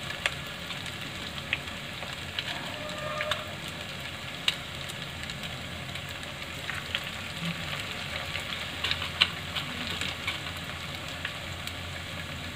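Maggi-noodle-coated vegetable manchurian balls deep-frying in hot oil in a kadhai: a steady sizzle with scattered crackling pops.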